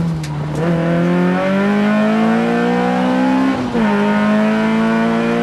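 Peugeot 106 rally car's four-cylinder engine heard from inside the cabin, pulling hard with its pitch climbing for about three seconds. About three and a half seconds in the pitch drops sharply at an upshift, then starts climbing again.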